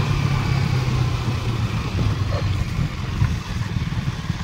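KTM Duke 200's single-cylinder engine running at a steady pitch while riding.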